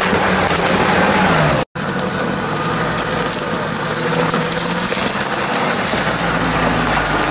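UAZ-469 off-road vehicle's engine running under load as it drives through slushy, icy water, with a constant hiss of splashing. The sound breaks off for an instant under two seconds in.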